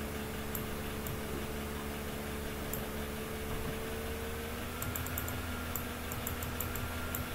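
Short runs of quick light clicks from a computer mouse scroll wheel over a steady hum and hiss.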